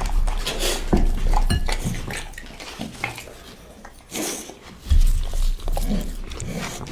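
A puppy chewing and eating raw meat close to the microphone: irregular wet clicks and chomps, with a couple of louder knocks about one and five seconds in.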